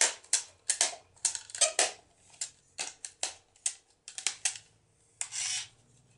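Hard plastic clicks and knocks of a Disney Spider-Bot remote-control toy being handled, as its snap-on dome is pressed back on and the body is picked up. About a dozen irregular sharp clicks, with a short scraping rasp a little past five seconds in.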